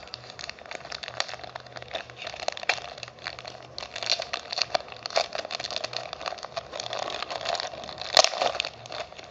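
Clear plastic bag around paper leaflets crinkling and crackling as it is handled and opened, with the loudest crackle about eight seconds in.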